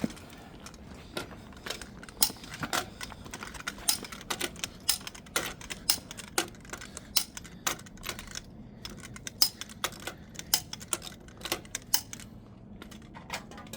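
Irregular sharp clicks and clinks, several a second, as caps and lug nut covers are handled and snapped onto a truck's wheel lug nuts.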